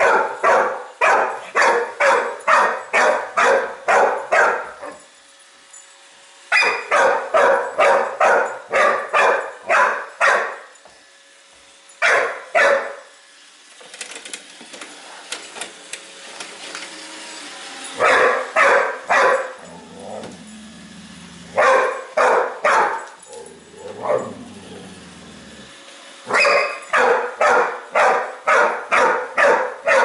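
A large dog barking at a Roomba robot vacuum, fast repeated barks at about two to three a second in runs of several seconds broken by short pauses.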